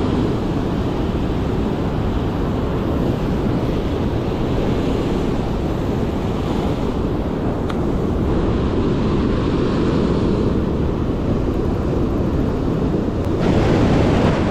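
Ocean surf breaking and washing over rocks, with wind buffeting the microphone; a louder surge of water comes in near the end.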